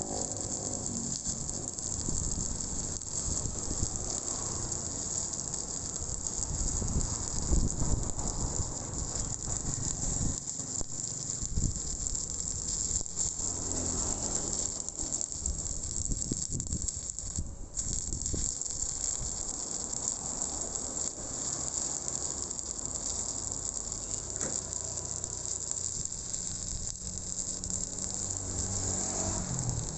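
Shielded metal arc (stick) welding arc burning on a steel pipe joint with a 7018 electrode: a steady crackling hiss that breaks off for a moment a little past halfway.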